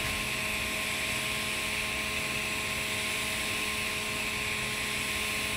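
TIG welding arc on carbon steel pipe, burning steadily during a fill pass: an even hiss with a steady hum underneath.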